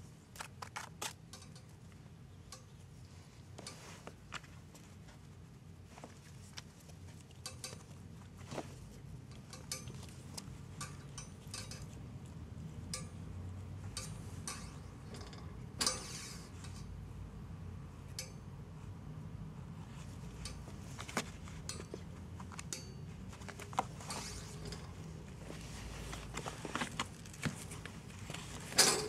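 A kitten playing with a teaser-wand toy on a cardboard scratcher: scattered light clicks, taps and scratches. There is a louder scrape about 16 seconds in and a burst of sharper clicks near the end.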